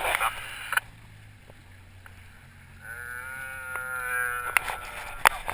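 One person's long drawn-out 'ooh' of wonder, about a second and a half, starting about three seconds in, over a faint low steady hum.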